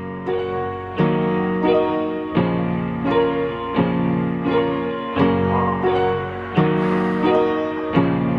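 Piano music: a slow run of sustained chords, one struck about every second and a half, opening a song.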